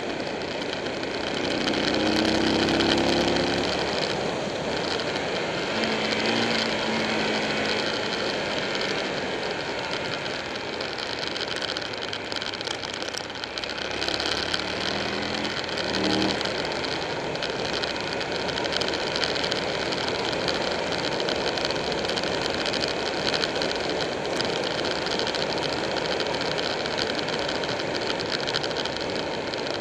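Wind rushing past a motorcycle-mounted camera at road speed, over the Buell 1125R's liquid-cooled 1125 cc V-twin running under it. The engine note comes up louder about two seconds in and again around fifteen seconds in, rising as the bike accelerates.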